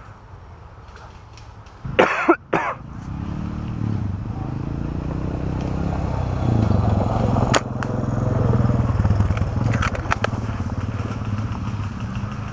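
A low, steady engine drone, like a motor vehicle running, that sets in about three seconds in and keeps going. A short loud burst comes just before it, and a single sharp click near the middle.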